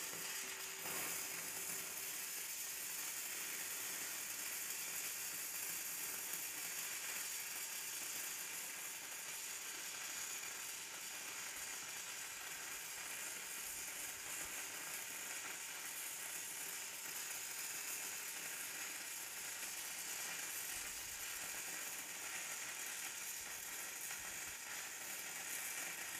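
Shielded metal arc (stick) welding with a 3/32-inch E6010 electrode on DC electrode positive, on mild steel plate with the mill scale left on: a steady, crisp arc crackle and hiss as the bead is run with a whip-and-pause motion.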